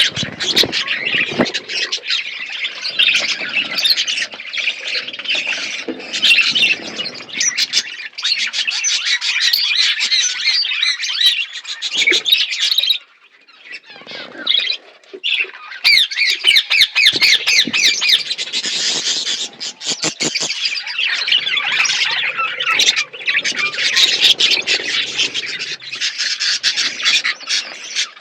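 A flock of budgerigars chattering and squawking continuously, dropping away briefly about halfway through before starting up again.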